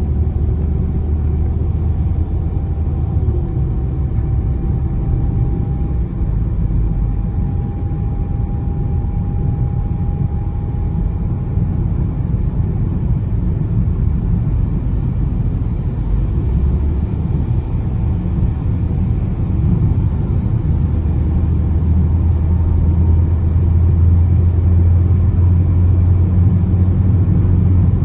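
Steady low rumble of a car's engine and tyres on the road, heard while driving at speed, growing a little louder about two-thirds of the way through.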